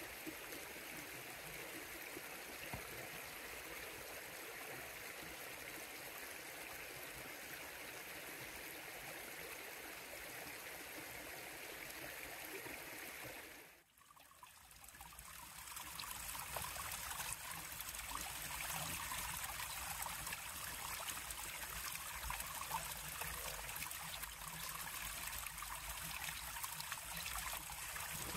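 River water flowing, a steady rushing and trickling. About fourteen seconds in it fades out briefly and comes back as a louder, fuller babble of water.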